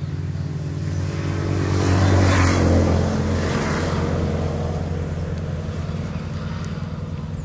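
A motor engine running steadily with a low hum, growing louder about two to three seconds in and then easing off.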